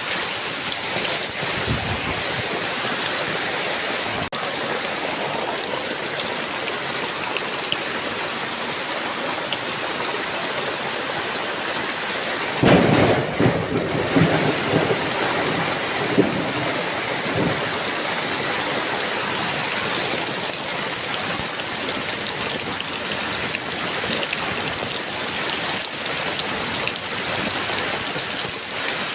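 Heavy rain falling steadily. About twelve seconds in comes a sharp thunderclap, then rumbling that dies away over the next few seconds.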